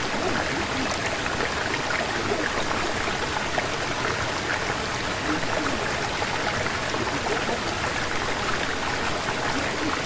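Stream rushing through a rocky gorge: a steady, even sound of running water that does not change.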